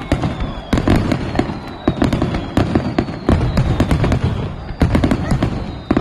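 Fireworks display at its climax: a dense barrage of shell bursts, with rapid sharp cracks coming several a second over a continuous low rumbling boom.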